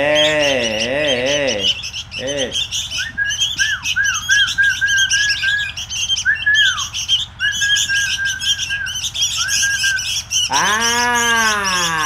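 Sooty-headed bulbul fledglings chattering shrilly and without a break, begging calls of hungry young birds. A man whistles a run of short, level notes through the middle. His drawn-out, wavering voice is heard at the start and again near the end.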